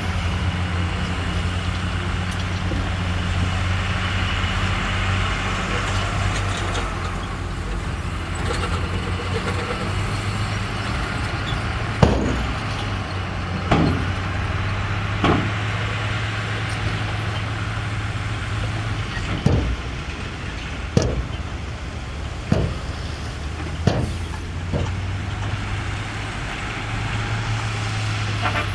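Heavy diesel engine of earthmoving machinery running steadily. From about the middle, a series of sharp knocks about a second and a half apart.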